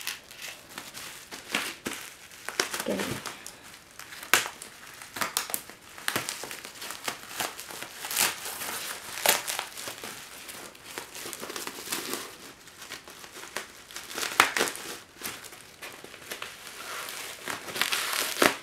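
Plastic bubble wrap crinkling and crackling irregularly in short sharp clicks as it is handled and cut open with a knife.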